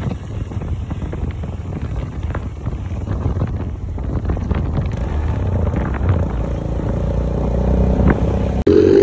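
Motorcycle engine running on the move, under heavy wind noise on the microphone. The engine note grows louder and climbs a little over the last few seconds, then an abrupt cut brings in a louder sound just before the end.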